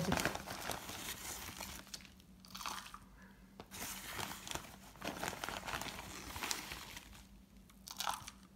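A plastic bag of potting soil crinkling as soil is poured from it into plastic seedling cups, with the rustle of the soil. It comes in short spells with brief pauses.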